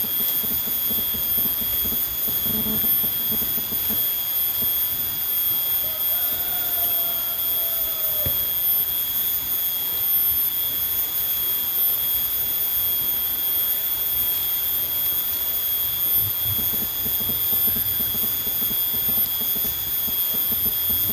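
Steady high-pitched insect drone, several unbroken tones held without change, with a brief falling call about seven seconds in.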